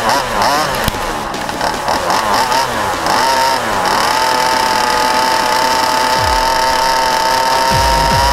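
Two-stroke 25cc petrol engine of a ROVAN Baja RC buggy, heard from on board, revving up and down under quick throttle changes for about four seconds, then held at a steady high pitch at full throttle.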